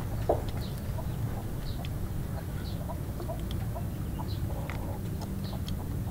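Chickens clucking, with many short, low calls scattered irregularly and one louder cluck near the start, over a steady low rumble.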